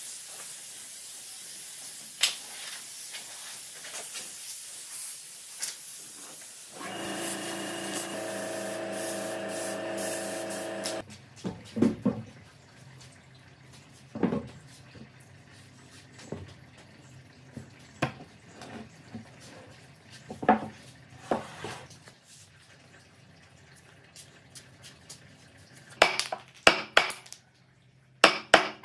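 Compressed-air blow gun hissing steadily for about seven seconds, then a pitched mechanical hum for about four seconds that cuts off suddenly. After that come scattered wooden knocks and clunks, and near the end a quick run of sharp taps.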